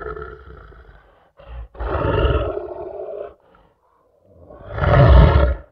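Deep roars laid in as a sound effect: one trailing off at the start, a second about two seconds in, and a third swelling up and cutting off suddenly near the end.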